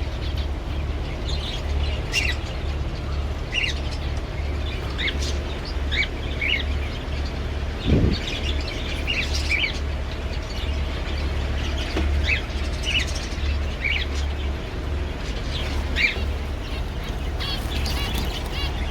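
Small cage birds chirping in an aviary: many short, scattered chirps over a steady low hum, with a dull knock about eight seconds in.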